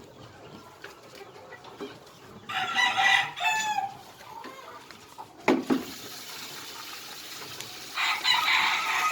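Loud bird calls, like domestic fowl, in two bouts, the first about two and a half seconds in with a falling glide at its end, the second near the end; a short dull thump sounds between them.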